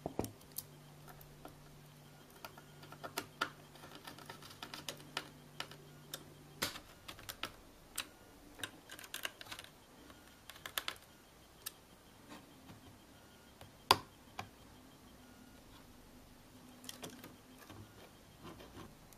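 Scattered faint clicks and ticks of a screwdriver working screws and of plastic and metal parts being handled inside an opened video projector, with a faint low hum that stops about a third of the way in.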